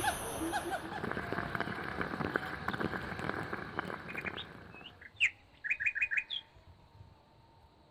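A bird gives a quick run of about five short chirps about five seconds in, after a few seconds of crackly noise.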